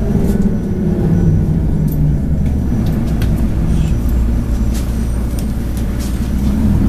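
City bus running along the road, heard from inside the passenger cabin: a steady low engine rumble with scattered clicks and rattles.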